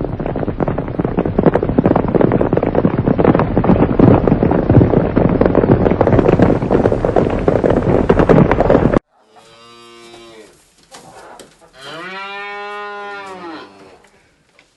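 A loud, crackly recording of a flock of sheep bleating that cuts off suddenly about nine seconds in. It is followed by a cow mooing twice, two long calls that rise and fall in pitch.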